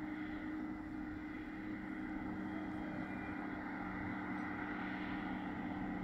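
Farm diesel engines running: a Renault Ceres tractor idling close by and a Claas Lexion 530 combine harvester driving up the road towards it. Together they make a steady drone that grows slowly louder as the combine nears.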